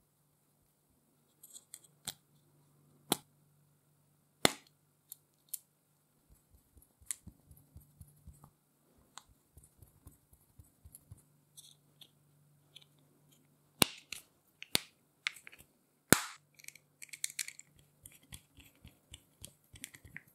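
Sharp clicks, taps and knocks of small metal parts and hand tools being handled during compressor repair work, with a few much louder knocks scattered through and a quick run of soft taps near the middle.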